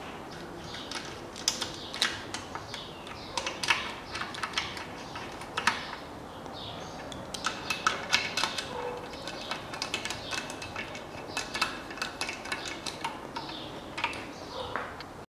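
Irregular metallic clicks and taps of a hand tool working the bolts of an engine's oil pump as it is screwed down onto the block.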